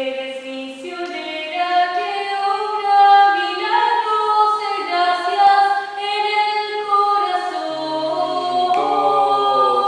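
Small choir of mostly women's voices singing a cappella in several parts, holding sustained chords in a rehearsal run-through.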